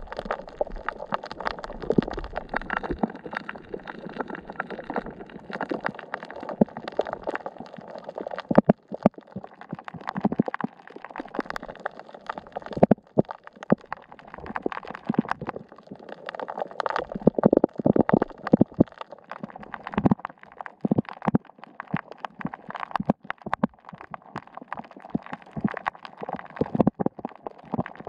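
Underwater sound of shallow reef water picked up by a submerged camera: a muffled, steady wash with many irregular sharp clicks and pops.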